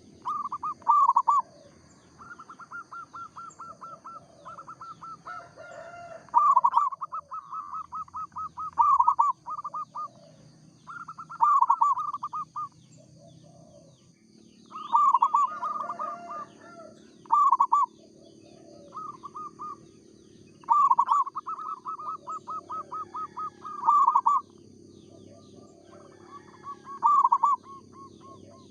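Zebra dove (perkutut) singing in repeated phrases, each a quick string of staccato coos that often ends in louder notes, with short gaps between phrases. A faint steady high tone runs behind it.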